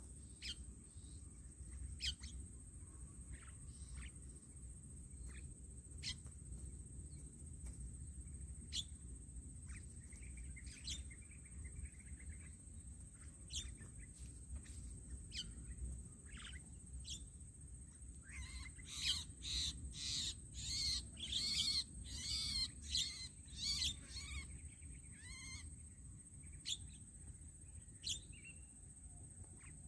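Birds calling: scattered short sharp whistles and chirps, with a burst of rapid chattering notes about two-thirds of the way through, over a steady high-pitched tone.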